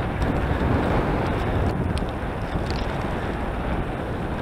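Steady wind rush buffeting a helmet-mounted action camera's microphone while riding a road bike at speed, with a few faint clicks.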